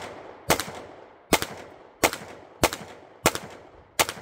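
Semi-automatic pistol firing six shots at a quick, steady pace, about one every 0.7 seconds, each crack followed by a short fading echo. It is part of a ten-round string of rapid aimed fire.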